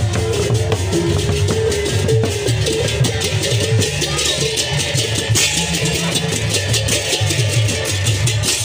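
Sasak processional gamelan (gamelan betep) playing on the march: hand cymbals clash in a fast steady pattern over drums and a repeating melody of pitched notes.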